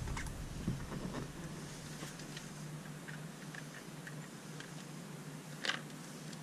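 Faint scattered clicks and light taps of a stainless screw and washer being fitted onto a cordless drill's bit and the drill being set against the pump's mounting base, with one sharper click a little before the end. A faint steady low hum runs underneath.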